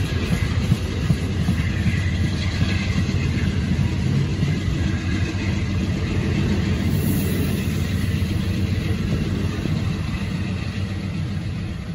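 Amtrak passenger train's stainless-steel coaches passing at speed: a steady rumble of wheels on rail that starts to fade near the end as the last car goes by.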